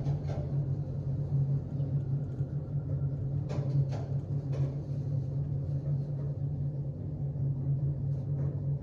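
Otis SkyRise traction elevator car descending at speed, heard from inside the cab: a steady low rumble of the car travelling down the hoistway, with a few light clicks from about the middle.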